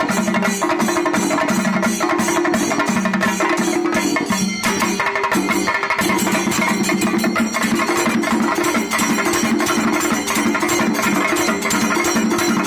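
Kerala chendamelam: an ensemble of chenda drums playing rapid, continuous strokes, with ilathalam cymbals ringing above the drums.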